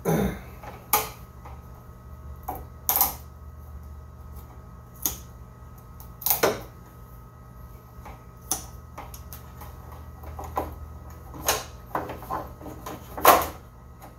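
Irregular clicks and knocks of hands working at a wall-mounted plastic fiber-optic enclosure, fitting cable and parts into it, with the loudest knock near the end. A steady low hum runs underneath.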